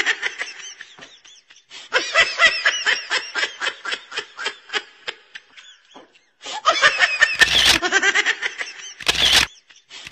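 People laughing in quick, repeated chuckles, in three stretches with short breaks between them. Near the end, two short loud bursts of noise cut through the laughter.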